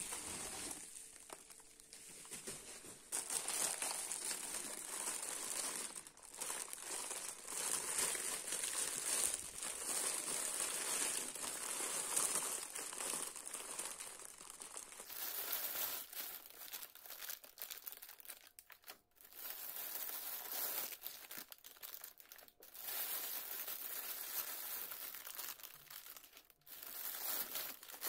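Bubble wrap and clear plastic packaging crinkling and rustling as it is unwrapped by hand, in several stretches broken by short pauses.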